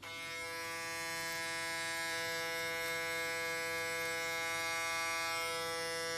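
Electric hair clippers switched on right at the start, then running with a steady buzz while trimming short hair at the back and side of a boy's head for a fade.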